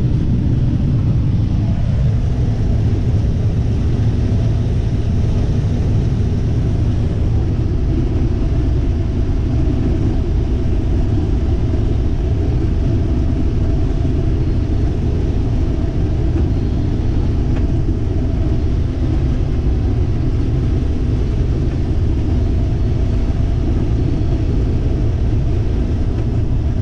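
Combine harvester running steadily while shelling corn: a constant low drone of engine and threshing machinery, with a faint steady hum above it, heard from inside the cab.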